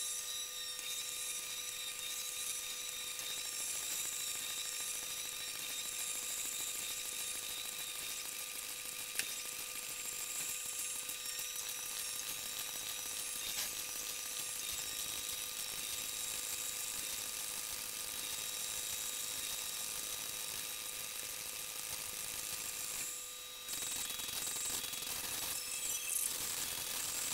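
Steady high hiss with faint steady whining tones and a few small clicks, typical of electrical or recording noise; it dips briefly about 23 seconds in.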